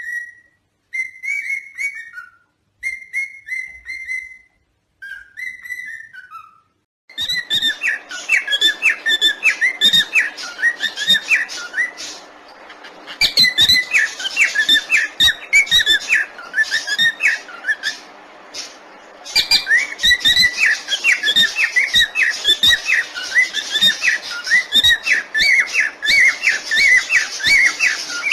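Parrots calling: four drawn-out whistled notes with silent gaps, then from about seven seconds in a dense run of rapid chirps and chatter that carries on with two short pauses.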